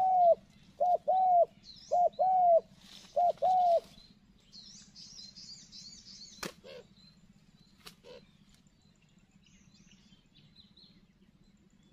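Spotted dove cooing: four two-note phrases, a short note then a longer one, about one phrase a second, stopping about four seconds in. Afterwards a small bird's brief high twittering and two sharp clicks.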